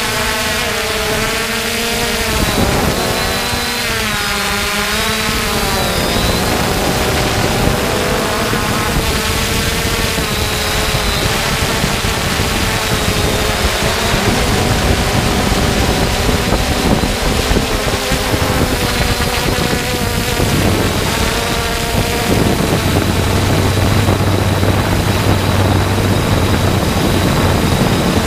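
3DR Solo quadcopter's electric motors and propellers whining in flight, the pitch wavering up and down as the motors change speed, over a hiss of rushing air.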